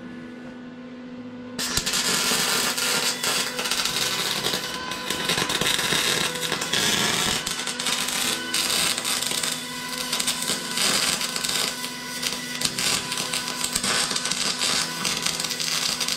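Electric arc welding: the arc crackles and sputters steadily, starting about a second and a half in, with brief dips where the weld pauses.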